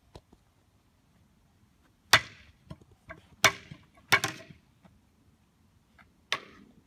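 Yellow plastic toy bat striking a batting tee and its ball in a series of sharp knocks: the loudest about two seconds in, three or four more in quick succession a second or two later, and one more near the end.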